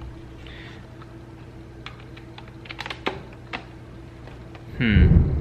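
A scattered run of light clicks and taps, then near the end a sudden loud low rumble with a falling pitch.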